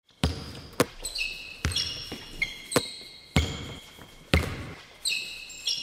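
A basketball bouncing on a hard floor: about seven irregular, ringing bounces, with short high-pitched squeaks between them.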